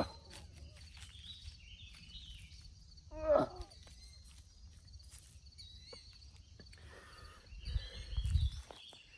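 Quiet outdoor ambience with faint high chirping throughout. A man's short grunt comes about three seconds in, and a low rumble comes near the end.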